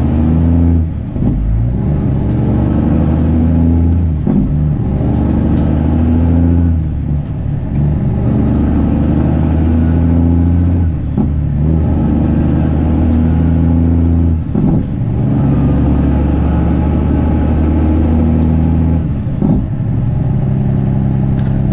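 Straight-piped Kenworth C500's Cummins diesel pulling hard up through the gears, the engine note breaking briefly at each of about six shifts. A high whistle climbs in pitch between shifts and falls away at each one.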